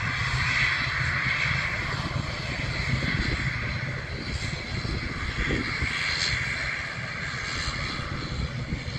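ATR 72-600 turboprop airliner taxiing, its twin Pratt & Whitney PW127M engines and propellers running at low power in a steady droning hiss.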